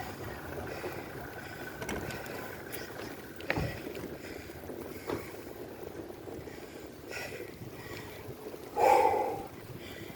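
Wind rushing over the microphone with tyre and road noise from a bicycle rolling along, a faint steady whine fading away in the first few seconds and a couple of short knocks, and a brief louder sound about a second before the end.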